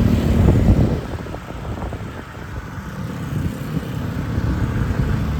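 A road vehicle passing close by: its engine rumble is loudest in the first second, then drops away to steady traffic noise.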